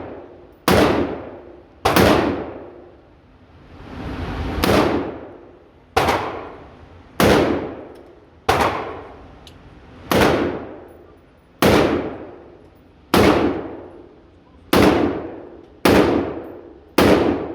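Small-calibre semi-automatic gun firing single shots at a steady pace, about one every second and a half, roughly a dozen in all, each shot ringing out with a long echo. One report about four seconds in swells up more slowly than the rest.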